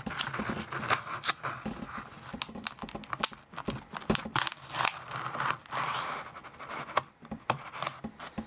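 A kitchen knife sawing through the wall of a white disposable takeout bowl: scraping and crackling, with many sharp clicks and cracks as the container gives way.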